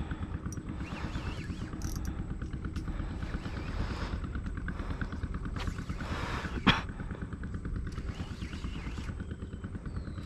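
A small engine running steadily, with one sharp click about two-thirds of the way through.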